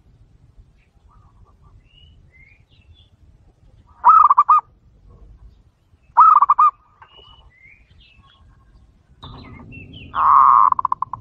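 Zebra dove (perkutut) cooing: three bursts of rapid staccato coo notes, about 4 and 6 seconds in and a longer, loudest one near the end. Faint high chirps of small birds in the background.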